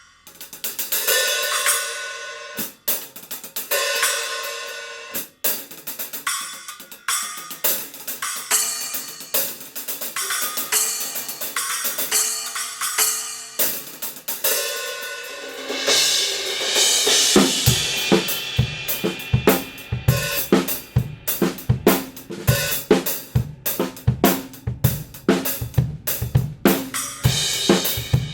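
Kingdo Artist Dark B20 bronze cymbals played on a drum kit: crashes and hi-hat strikes ring out with little drum beneath. About halfway through, kick and snare join in a steady beat under the cymbals.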